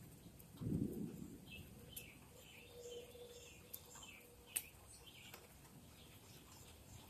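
Faint outdoor ambience during a thunderstorm lull: scattered bird chirps and a few sharp ticks, with a brief low rumble about half a second in.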